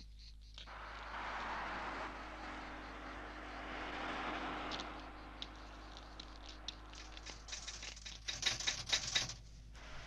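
A typewriter being typed on briskly: a quick run of sharp key strikes in the last few seconds, loudest a little past the middle of that run. Before it comes a few seconds of a rushing noise that rises and falls.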